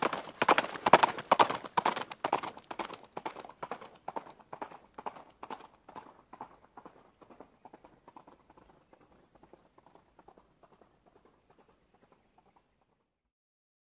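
Rhythmic hard clopping, about four strikes a second, growing steadily fainter until it dies away near the end.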